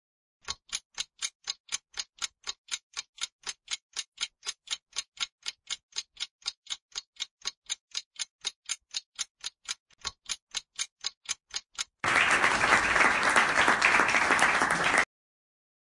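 Countdown-timer sound effect: fast, even clock ticks, about three or four a second, for some eleven seconds. Then a burst of applause sound effect for about three seconds that cuts off suddenly.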